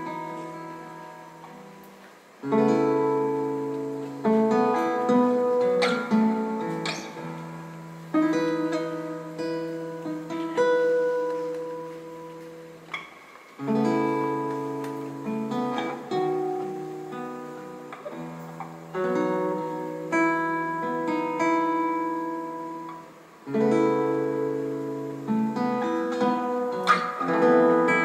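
Acoustic guitar playing a song's instrumental intro: chords strummed and left to ring and fade, a full chord about every five seconds with lighter picked notes in between.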